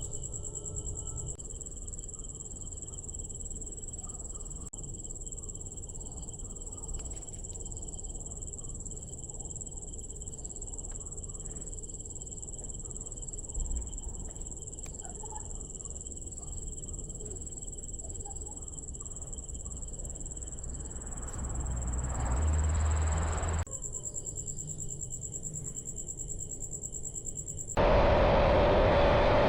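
Steady high-pitched insect chirring over a low rumble, with a few faint clicks. A noise swells and drops away about two-thirds of the way through. Near the end the chirring cuts off and a much louder, steady rushing noise starts suddenly.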